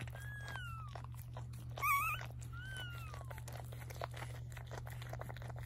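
Newborn Chinese crested–cocker spaniel puppies squealing: three thin, high squeaks falling in pitch, the middle one wavering and loudest. Faint wet licking clicks come from the mother cleaning a newborn.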